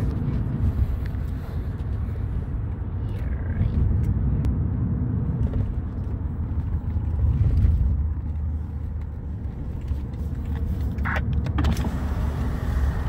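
Steady low engine rumble of a heavy vehicle, with a few brief higher-pitched sounds near the end.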